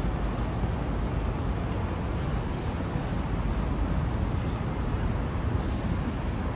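City street ambience: a steady rumble of traffic going by, with no single event standing out.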